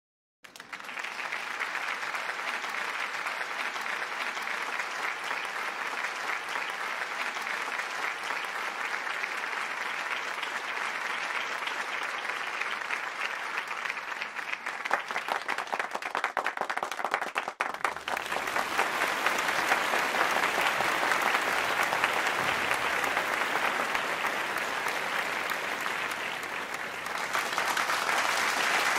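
Applause from a clapping crowd, a dense steady patter of many hands. It drops out briefly about two-thirds of the way in and resumes louder and fuller.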